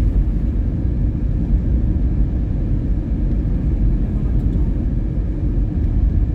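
Steady low rumble of a Toyota Prius driving on a snow-covered road: tyre and road noise.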